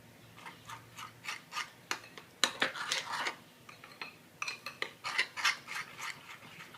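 Chocolate cake batter being stirred by hand, the utensil scraping and clicking against the side of the mixing vessel in quick, irregular strokes as ghee is worked in.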